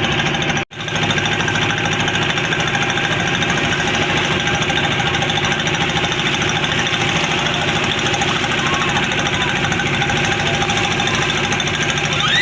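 Boat engine running steadily with a fast, even knocking beat, broken by one sudden brief drop-out under a second in.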